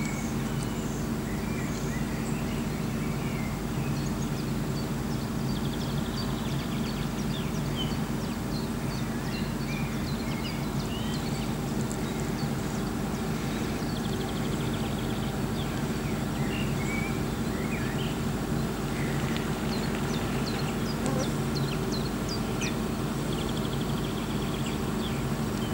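Wild birds chirping and calling over a lake, with a rapid trill twice, about six seconds in and again near the end, over a steady low drone.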